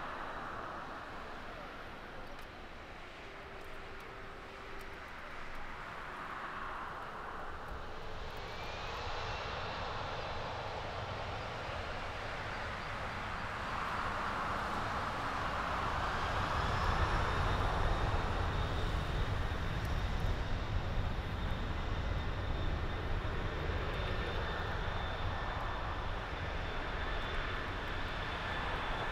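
Boeing 747-400 freighter's four jet engines spooling up to takeoff thrust. A rising whine comes about eight seconds in, then a deep rumble builds under a steady high whine and is loudest past the middle.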